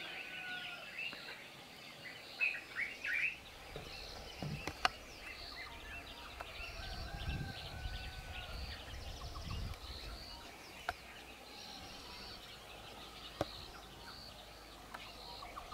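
Evening birdsong and chirping in the bush, with a short high call repeated about once a second and a louder cluster of chirps a couple of seconds in. A few sharp clicks, and a low rumble that comes in a few seconds in.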